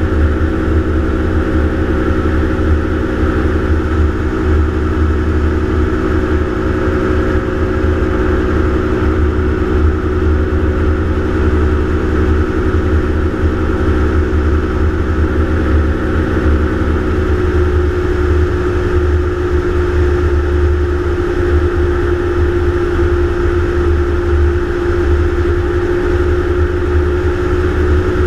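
Gyroplane's engine and propeller droning steadily in flight, heard from a camera mounted on the aircraft, with a heavy low rumble. About two-thirds of the way in, the engine note shifts slightly.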